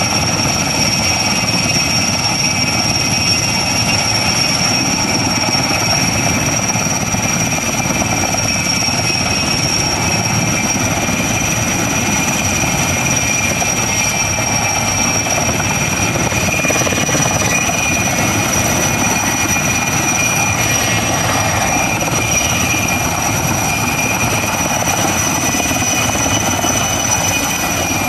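Erickson S-64 Air-Crane firefighting helicopter running at hover power, its twin turbine engines and rotors making a loud, steady din with a high turbine whine on top, as it draws water through its snorkel hose to refill its tank.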